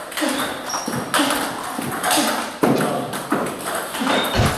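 Table tennis ball clicking on the Tibhar table top and off racket rubber in a steady rally, about two sharp hits a second, some with a brief high ping.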